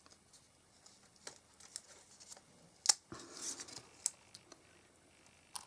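Light clicks and a brief paper rustle as card stock and paper-crafting tools are handled on a desk, with one sharper click about three seconds in.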